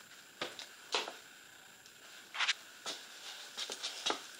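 Slime being handled close to the microphone, giving short sticky clicks and pops at irregular spacing, with a quick run of them near the end.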